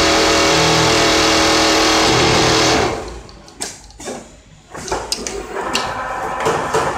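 Richpeace automatic template sewing machine running: a loud steady whirr that cuts off about three seconds in, followed by scattered clicks and knocks.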